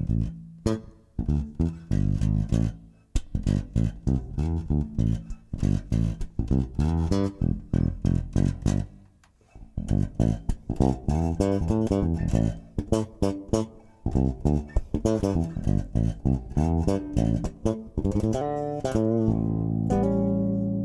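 Ansir electric bass guitar played solo: a groove of short plucked notes with a few brief pauses, ending on a long held note that rings on. The tone knob is rolled down to about 25% or off, for a Motown-style sound.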